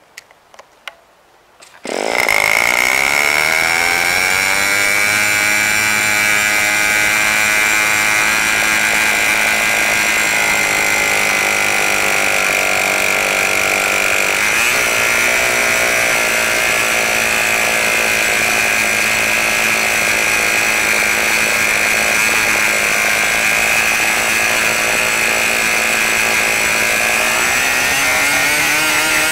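An ASP 46A two-stroke model glow engine bursts into life about two seconds in and runs loud and steady at high RPM, turning an APC 11x6 propeller. Its pitch wavers briefly about halfway through and climbs near the end.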